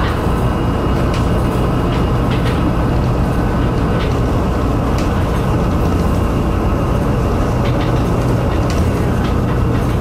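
Cabin noise inside a battery-electric low-floor city bus cruising at highway speed, about 72 km/h: steady low road and tyre rumble with a few brief rattles and clicks.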